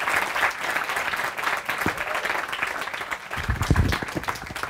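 Audience applauding at the end of a talk, the clapping thinning out toward the end, with a few low thumps near the end.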